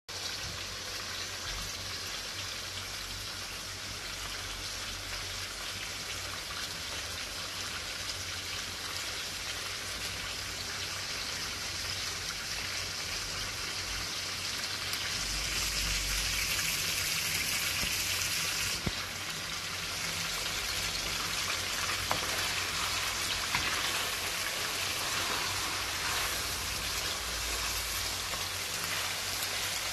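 Mutton pieces sizzling in hot oil in a karahi: a steady frying hiss that gets louder from about halfway.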